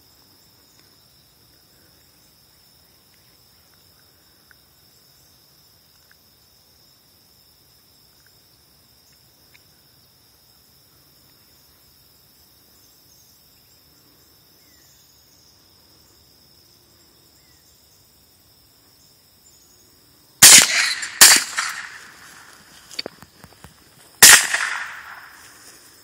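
A .22 rifle firing three loud sharp shots, the first two less than a second apart and the third about three seconds later, each trailing off over about a second, with a fainter crack between them.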